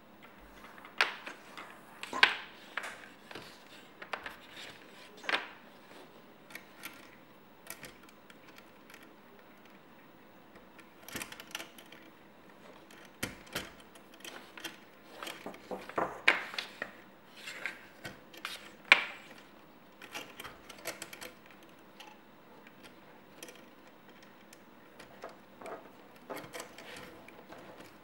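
Handling noises from setting up a paracord jig: irregular clicks of plastic side-release buckles and metal fittings, with paracord rubbing as it is worked and pulled. The clicks come in clusters with quiet stretches between.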